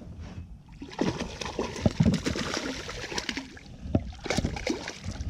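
Water splashing in irregular bursts, a hooked bass thrashing at the surface as it is brought alongside and landed.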